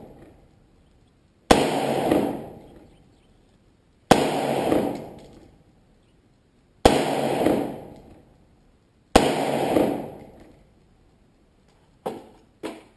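AR-15 rifle fired in slow single shots, four of them a couple of seconds apart, each crack followed by about a second of loud echo that dies away. Two shorter, quieter bangs come near the end.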